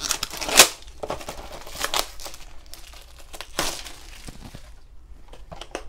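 Disney Doorables mystery-box packaging being torn open and crinkled by hand: several sharp rips, the loudest about half a second in, then quieter rustling near the end.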